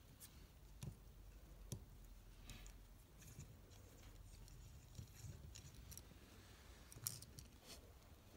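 Faint, scattered metallic clicks of a long-stemmed Allen wrench (hex key) being spun by the fingers to back a small screw out of a steel transmission gear's spring retainer clip.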